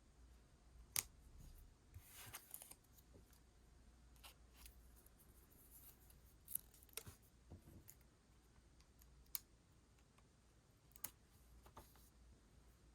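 Scissors cutting paper: a few separate sharp snips spread out, with a short paper rustle about two seconds in.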